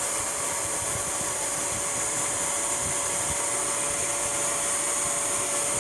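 Steady whirring hiss of an air blower forcing air into a sealed-off car exhaust system to find leaks, with a thin constant whine.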